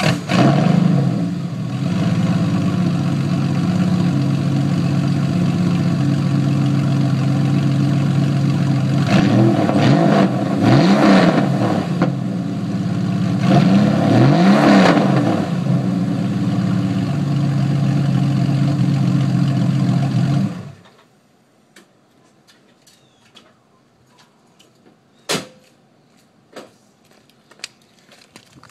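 Porsche 993's air-cooled flat-six, with stock catalytic converters and Supercup mufflers, idling steadily just after start-up. It is revved briefly twice, about ten and fourteen seconds in, and switched off about twenty seconds in, after which a few faint clicks remain.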